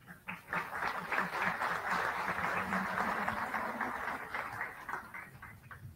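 Audience applauding: a few scattered claps, then a full round of applause that thins out to a few last claps near the end.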